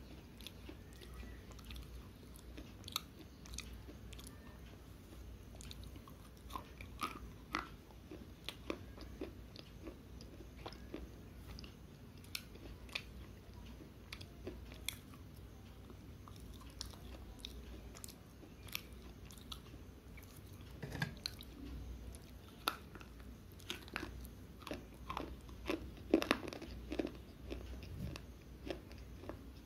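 Slate pencil being bitten and chewed: scattered sharp, dry crunches and clicks at an irregular pace, with a louder run of crunches near the end.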